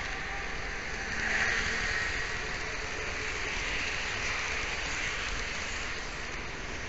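N-scale model train running on Kato Unitrack, heard up close through a mini camera riding on it: a steady rolling hiss that swells slightly about a second in.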